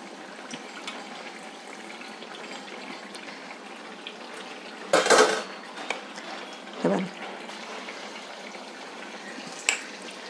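Sweet rice-and-banana appams deep-frying in oil in a pan: a steady sizzle and bubbling. A few louder metal clatters of a slotted spatula against the pan come through it, the loudest about five seconds in.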